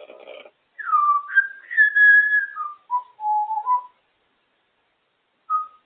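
African grey parrot whistling: a short rough sound, then a run of clear whistled notes that step down in pitch over about three seconds, and one more brief whistle near the end.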